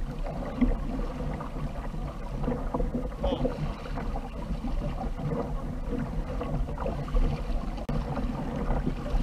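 Water splashing and lapping against a fishing kayak's hull as it moves across open sea, with wind rumbling on the microphone.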